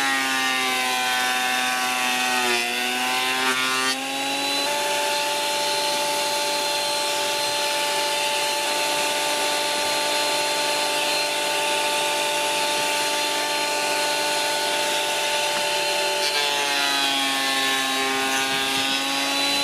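Parkside PADM 1250 planer-thicknesser running as a thickness planer, a steady motor whine. Its pitch sags and recovers as a board goes through and the cutter block takes a cut: once in the first few seconds and again near the end. In between it runs steadily without load.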